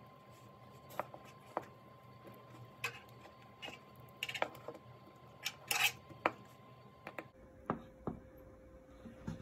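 Light, irregular metallic clicks and taps: a small flathead screwdriver working the clamp screw on a small brass plug terminal, and the terminal being handled between the fingers.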